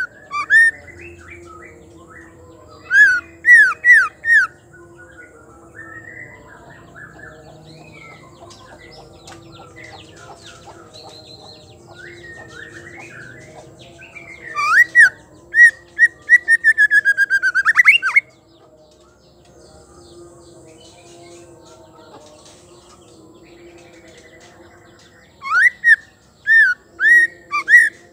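White-rumped shama calling: loud, short hooked whistled notes in clusters of three or four, about three seconds in and again near the end. Around fifteen seconds a longer cluster runs into a fast rattling series of notes that stops suddenly. Softer chirps sound between the clusters.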